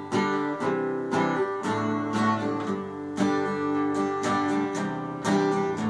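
Acoustic guitar strummed in a steady rhythm, about two to three strums a second, with no singing over it.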